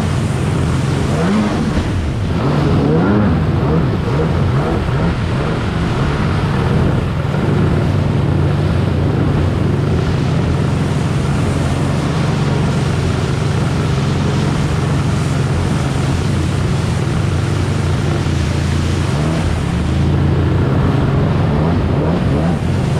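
Two-stroke stand-up jet ski engine running hard under load while riding river rapids, its pitch wavering up and down a little near the start and again near the end. Rushing water and spray hiss underneath.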